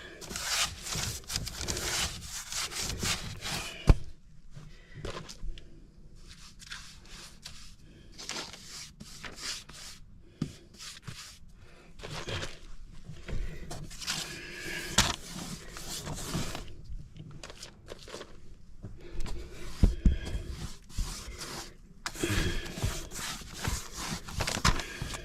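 Paintbrush working paint across a wooden floor: irregular rubbing and scraping strokes with short pauses, and an occasional knock.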